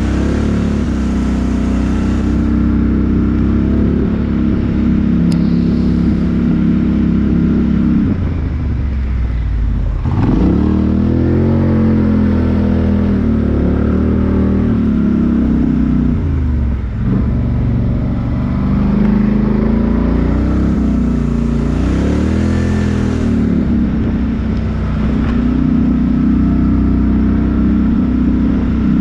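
Off-road 4x4 engine working a step-up obstacle: steady running at first, then revved several times in the middle, its pitch rising and falling in swells, before settling back to a steady run near the end.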